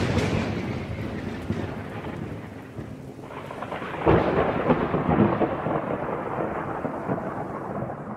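Thunderstorm: a thunderclap's rumble dying away over steady rain, with a second roll of thunder about four seconds in.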